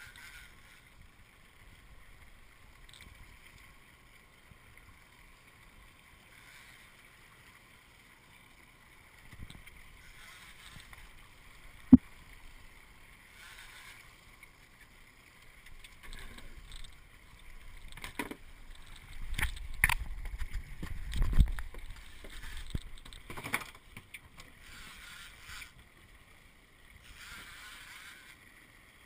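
Sea water sloshing against a small boat's hull, with a single sharp knock about twelve seconds in and a run of bumps and knocks in the second half.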